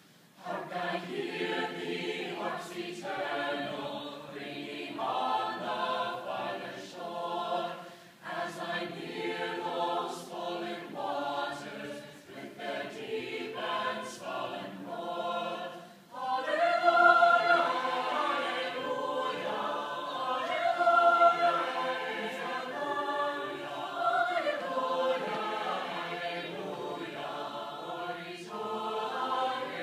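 Chamber choir singing, entering about half a second in and growing louder about halfway through.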